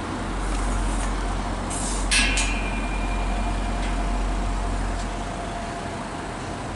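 Transport for Wales diesel multiple-unit passenger train running slowly past the platform with a steady low rumble. A short, sharp air hiss comes about two seconds in.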